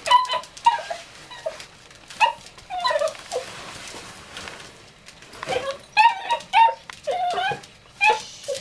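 A Yorkshire Terrier whining and yipping excitedly in short high calls, in quick clusters with a lull of about two seconds in the middle.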